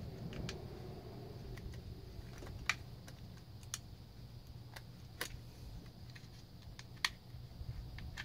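Scattered light clicks and taps as hands handle and fit parts on a small four-stroke grass-trimmer engine. There are about a dozen of them at uneven intervals, over a faint low hum.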